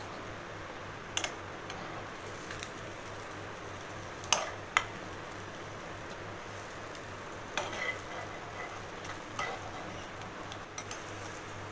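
A steel spatula scraping and tapping against a nonstick frying pan while it slides under and folds an egg omelette, a few short clicks and scrapes, the loudest two close together about halfway through, over a faint steady hiss.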